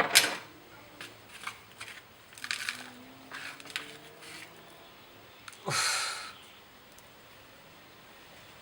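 Small metal carburettor parts and hand tools being handled on a workbench: a sharp knock right at the start, a run of light clicks and clatters, and a longer scraping rattle about six seconds in, then quiet handling.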